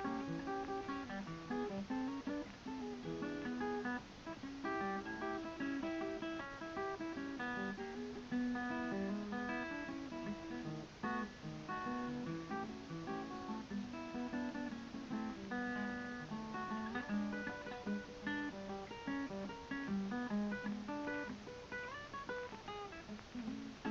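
Background music: acoustic guitar playing a continuous run of plucked and strummed notes.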